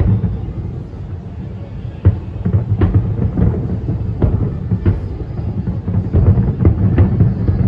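Fireworks going off in an irregular series of sharp booms, several of them loud, over a continuous low rumble of bursts and their echoes.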